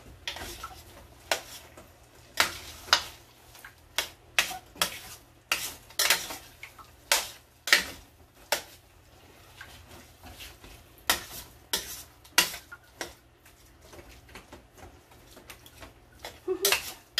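A cooking spoon stirring sticky glutinous rice in a stainless steel pot, knocking and scraping against the pot's sides and bottom in repeated, irregular clinks.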